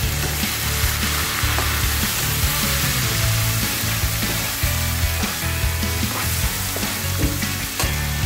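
Fried onions with ginger and garlic paste sizzling in hot oil in a frying pan, loosened with a splash of water, while a slotted spatula stirs and scrapes through them with frequent short taps against the pan.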